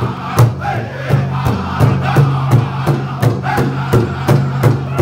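Powwow drum group: several men striking one large shared drum together in a steady beat, about three strokes a second, while singing together in high voices.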